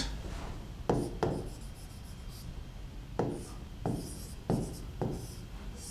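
Marker pen writing on a whiteboard: a series of about six short strokes spread over the few seconds.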